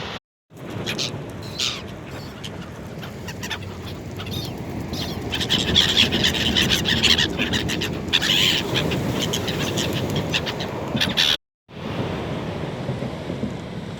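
Seagulls calling, many short overlapping cries that are thickest in the middle, over a steady rush of surf and wind. The sound drops out completely for a moment near the start and again near the end. After the second gap only the surf and wind are heard.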